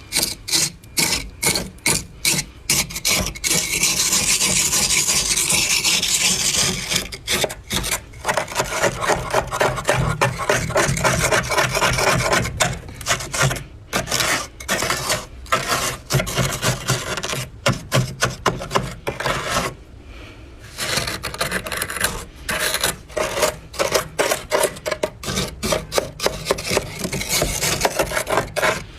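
Thick, dry freezer frost being scraped off in quick repeated rasping strokes, about three or four a second, with a few longer unbroken scrapes.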